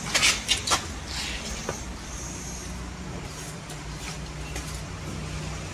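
Diesel engine of an Airman PDW280 welding generator running steadily with a low, even hum. A few sharp metal knocks in the first second come from the generator's side panel being handled.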